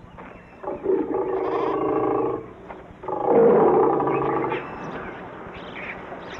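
Asiatic lion growling twice, each growl about a second and a half long, the second one louder.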